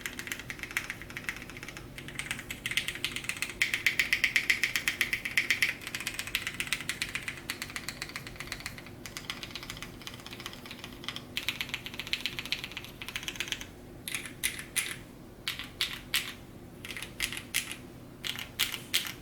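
Typing on a custom mechanical keyboard with lubed vintage Cherry MX Black linear switches in an FR4 plate, under GMK ABS keycaps. Fast, continuous keystrokes give way about fourteen seconds in to slower, separate strokes.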